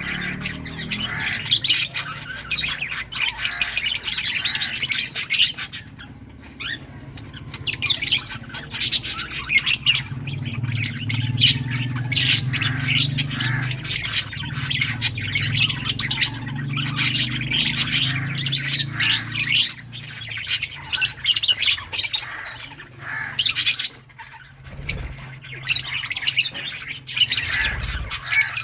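Several lovebirds chirping and squawking rapidly and continuously, with brief lulls now and then. A low steady hum runs underneath.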